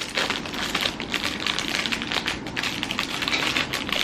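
Rapid, dense small clicks and crackles of objects being handled, such as plastic packaging or a decorative crown.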